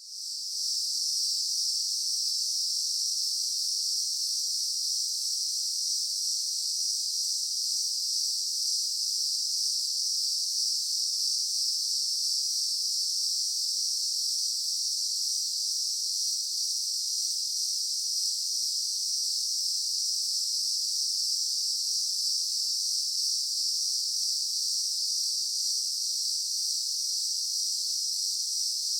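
Daytime insect chorus: a dense, steady high-pitched buzzing drone of many insects calling at once, fading in over the first moment and holding even.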